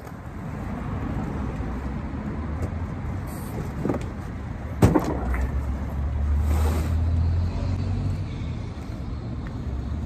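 Low, steady rumble of a motor vehicle, swelling in the second half, with one sharp knock about halfway through.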